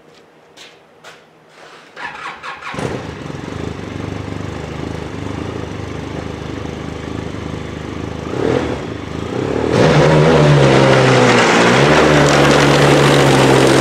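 Arctic Cat snowmobile engine starting about two seconds in and running, then throttled up to a loud, high steady rev from about ten seconds in, with a brief dip in pitch partway through.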